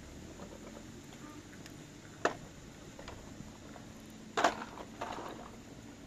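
Handling of an aluminium pan lid heaped with hot coals: a sharp knock a little over two seconds in, then a louder metallic clatter past the four-second mark followed by a few smaller knocks.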